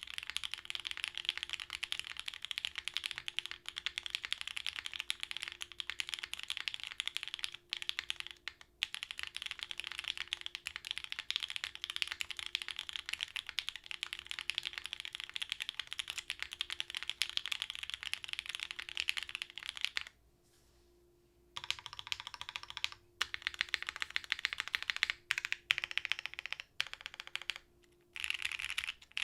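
Continuous fast typing on a Kibou Harbour custom mechanical keyboard: gasket-mounted polycarbonate plate, lubed OPblack switches, GMK keycaps, no dampening. A steady clatter of keystrokes breaks off for about a second and a half about two-thirds of the way in, then resumes in shorter runs with brief pauses.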